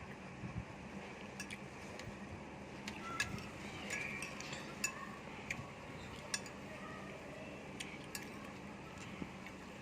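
Scattered sharp clicks and light taps of utensils against dishes, over a steady background hum.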